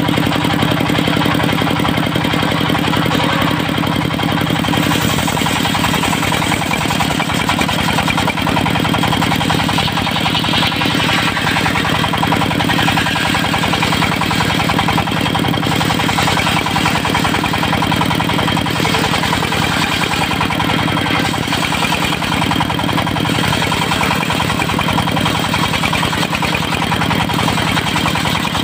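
Diesel engine of a mobile circular-saw sawmill running steadily, with a fast, even beat and a hiss of the spinning rig over it.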